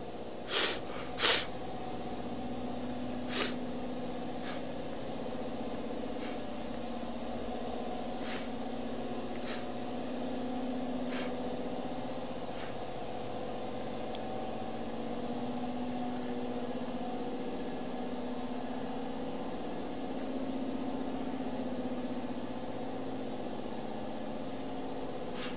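Pallet conveyor line running: a steady machine hum with two knocks near the start, then fainter sharp clicks every second or two.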